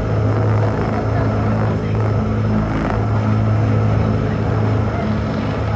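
Tokyo DisneySea Electric Railway train running, heard aboard: a steady low hum from its electric drive over the continuous rumble of the car in motion.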